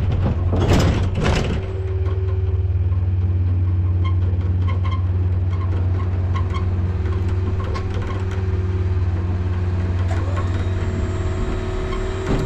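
Motor vehicle engine running with a steady low hum, with a short loud burst of noise about a second in.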